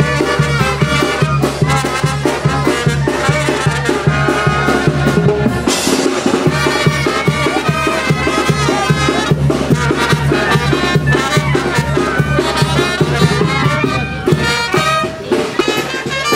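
Brass band music with trumpets and a steady drum beat.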